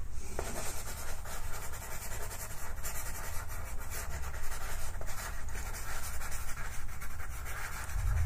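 Pastel pencil scratching and rubbing on pastel paper in rapid short strokes, a continuous dry scratchy hatching.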